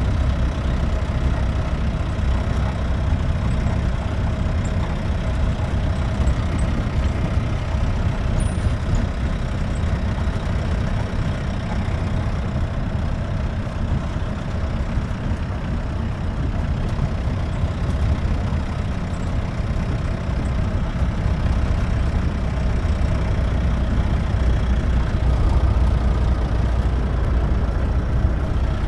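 Jeep engine running steadily as the jeep drives, heard from on board, growing a little louder in the last few seconds.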